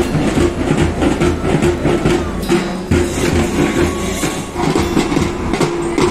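A school band's bass drums and side drums beating a steady marching rhythm.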